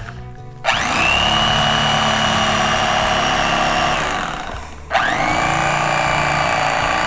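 Electric fillet knife running twice for about three to four seconds each as it skins walleye fillets. Each run starts with a rising whine that settles to a steady pitch. The first winds down about four seconds in before the motor starts again.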